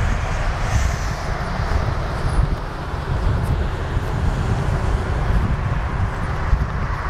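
Strong wind buffeting the microphone in an uneven low rumble, with a dense field of cloth flags flapping and fluttering in the wind.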